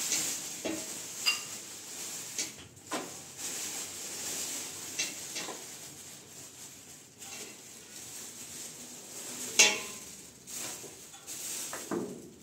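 Clear plastic bags crinkling and rustling as flatbread is handled in them on a kitchen counter, with scattered clinks of dishes. One sharp clink about ten seconds in is the loudest sound.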